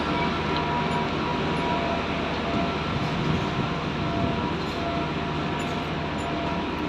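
A train running: a steady rumbling rush of noise with a few faint, steady whining tones over it.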